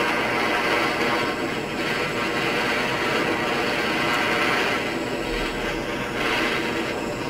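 Butane blow torch flame running steadily as it heats pewter in a casting ladle to melt it.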